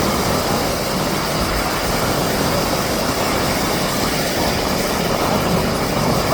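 Steady drone of a Canadair CL-415 water bomber's twin turboprop engines, mixed into an even wash of noise.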